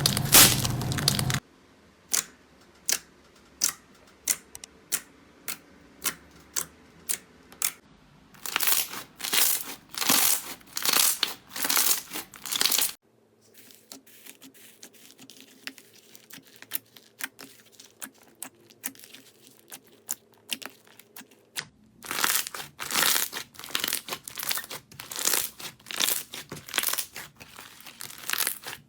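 Slime being pressed and squished by hand, giving sharp crackling pops and crinkly crunches: first a run of single pops, then denser crunching bursts, a quieter stretch, and more crunching.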